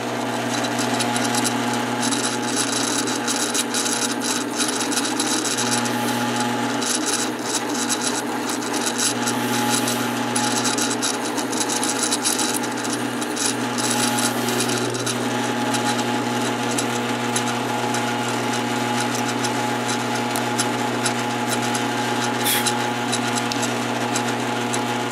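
Drill press motor running with a steady hum while its bit bores through an oak wheel. The cutting noise comes in several stretches over the first fifteen seconds or so, then the motor runs on alone.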